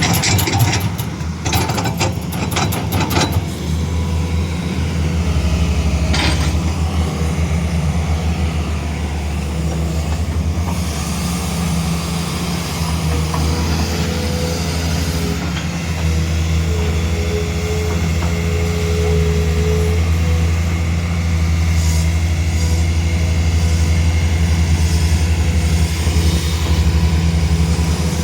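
Hydraulic excavator's diesel engine running steadily under load. A quick run of metallic clatter comes in the first few seconds, and a faint whine sounds for a few seconds around the middle.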